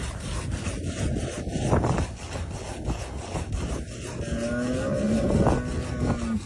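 Milk squirting from a camel's teats into metal bowls as it is milked by hand, a steady spray. From about four seconds in, a camel gives a low, drawn-out moan lasting about two seconds.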